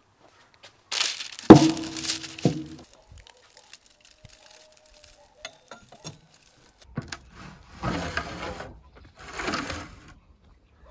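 Handling sounds while cooking: a heavy knock with a short ringing tone about a second and a half in, a second smaller knock, then two spells of crinkling from aluminium foil being handled near the end.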